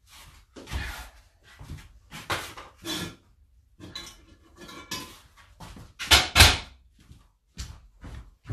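Rummaging: objects knocked about and shifted in an irregular run of short clatters and rustles, the loudest a little after six seconds in.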